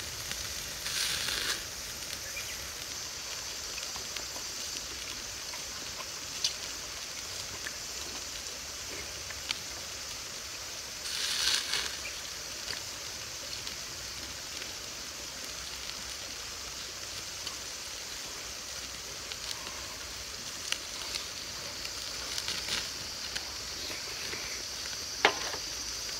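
Pork offal and vegetables sizzling on a wire grill over a fire, flaring up louder briefly about a second in and again around eleven seconds in, with a few small crackles. A steady high-pitched insect drone runs underneath.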